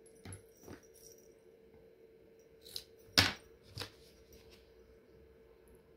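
A few short light knocks and clicks of things being handled and set down during crafting work, the loudest a little past three seconds in, over a faint steady hum.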